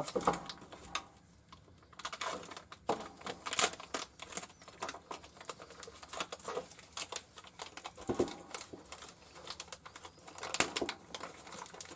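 Irregular clicks and light knocks of a steel quick change tool holder being handled and set down on the bench, with a short lull about a second in.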